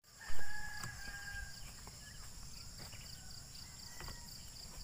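A rooster crowing once near the start, a held call of about a second, over a steady, high, pulsing buzz of insects.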